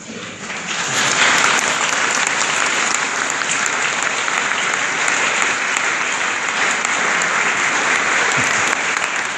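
Congregation applauding: the clapping swells up within the first second and then keeps on steadily.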